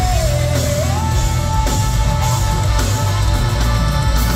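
Rock band playing live and loud, with electric guitars, bass and drum kit. A sustained high note slides up about a second in and holds.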